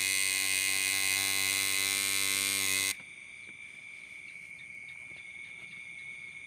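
Coil tattoo machine buzzing steadily, then switched off abruptly about three seconds in, leaving a faint steady high-pitched whine.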